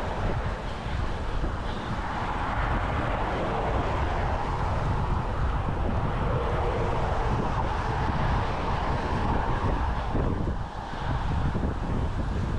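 Wind rushing over the microphone of a rider's camera while cycling at speed, mixed with the steady noise of road traffic.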